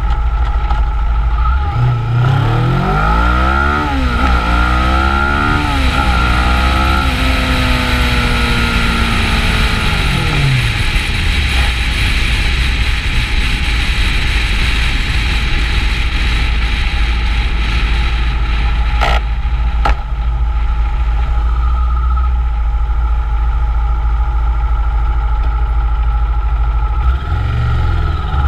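Kawasaki Ninja 650's parallel-twin engine accelerating hard through the gears, its note climbing and dropping back with each upshift, then falling away. After that a steady wind rush on the microphone covers everything while cruising, and the low engine note comes back near the end.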